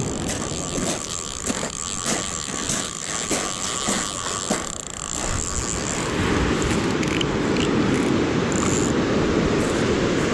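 Footsteps crunching on a pebble beach, about two or three a second, for the first five seconds. From about six seconds in they give way to a steady rush of surf and wind.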